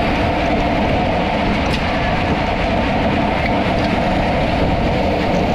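Steady, loud rumble of wind and road noise from travelling along the road.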